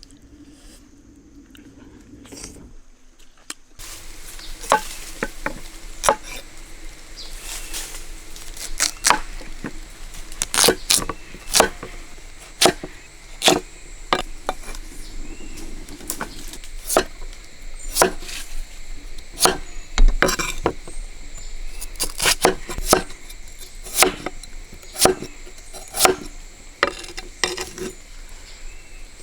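Sharp knocks and clatter of cooking utensils on wood, at times about once a second, starting about four seconds in, over a steady high insect drone.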